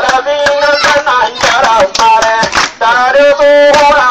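A man singing through a handheld megaphone, with long held notes, over sharp percussive strokes.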